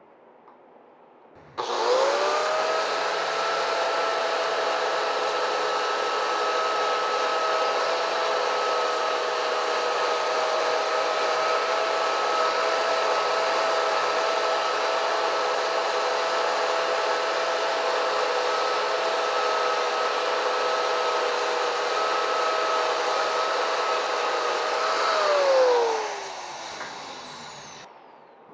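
Angle grinder with an abrasive disc switched on about a second and a half in, spinning up to a steady whine while it grinds the paint off a thin steel tube down to bare metal for the welding ground clamp. Near the end it is switched off and its pitch falls as the disc spins down.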